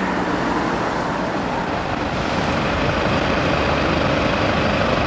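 A steady, dense rush of noise with a low rumble, like road traffic.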